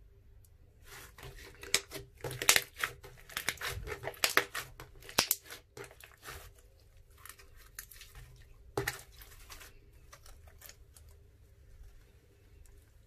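Hands squishing and kneading glossy slime: a run of wet crackling pops and clicks, densest in the first half, with one sharp pop about nine seconds in, then softer crackles as the slime is stretched.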